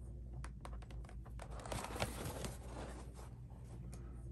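Waxed leather rustling and scraping as it is shifted under the walking foot of a hand-crank cobbler sewing machine, with scattered small clicks from the machine's metal presser-foot parts. The rustle is loudest about one and a half to two and a half seconds in, over a steady low hum.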